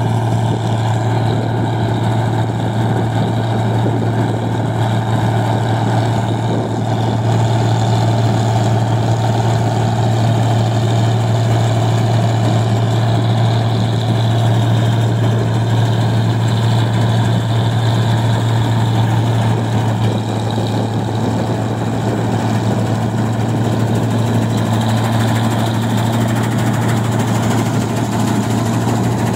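New Holland 1545 combine harvester running steadily while it cuts rice: a constant low engine drone with the clatter of the header and threshing machinery over it.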